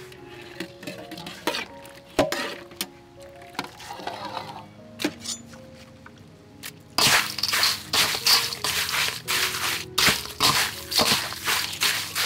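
Crushed ice crunching and crackling in quick bursts as freshly blanched beef slices are mixed into it, starting about seven seconds in. Before that there are scattered light clinks over soft background music.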